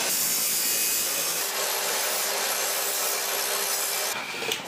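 DeWalt abrasive chop saw cutting through steel tube: a steady, harsh grinding hiss of the cut-off wheel in the metal, which stops abruptly about four seconds in.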